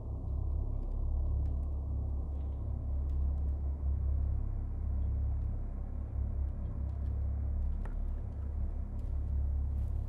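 Deep, steady rumbling drone, a suspense sound-design bed, with a faint click about eight seconds in.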